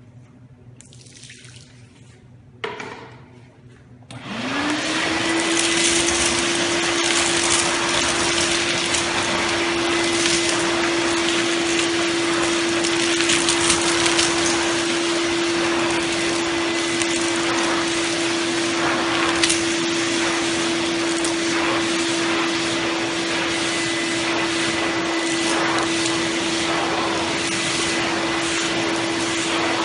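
A 30-litre wet-and-dry vacuum cleaner switched on after a short knock. Its motor spins up with a rising whine within about a second, then runs steadily with a strong rush of air.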